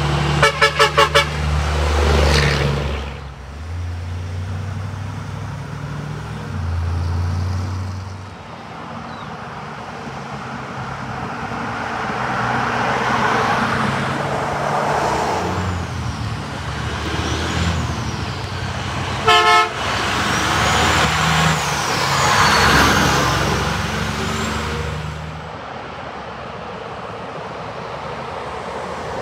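A semi truck's horn gives about five quick short toots at the start. Then trucks and cars pass with engine rumble and tyre noise that swell and fade. Two more quick horn toots come about two-thirds of the way through.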